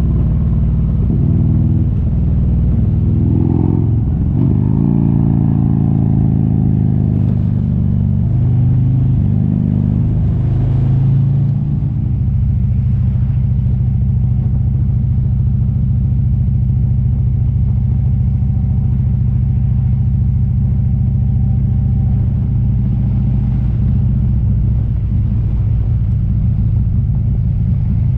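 Motorcycle engine running under way, its pitch shifting up and down with throttle and gear changes, then changing abruptly about twelve seconds in to a steady cruising note.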